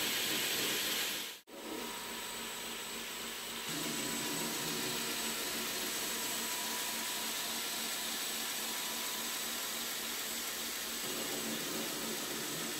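Belt grinder running with a black linen micarta knife handle held against its belt: a steady rushing hiss with a faint high whine. It cuts out for an instant about a second and a half in, then carries on.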